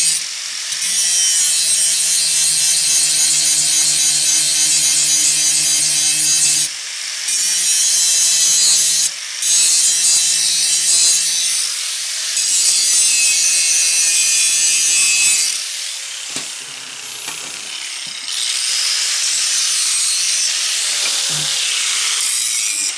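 Angle grinder grinding welds off steel, its motor humming steadily under a harsh hiss, with three short breaks. After about fifteen seconds it runs lighter, and its pitch falls as it slows late on.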